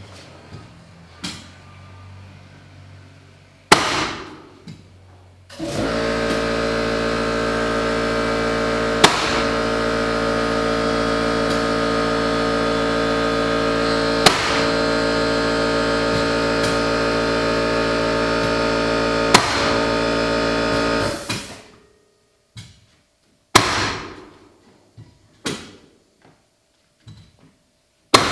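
A few sharp single strikes, then a machine running at a steady pitch for about fifteen seconds with a sharp click roughly every five seconds, then more scattered strikes. These are the sounds of hardwood floor installation work.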